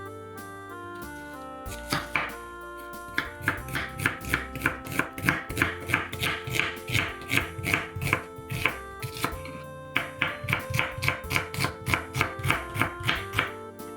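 Knife chopping rapidly on a cutting board, about four strokes a second, pausing briefly partway through, over background music.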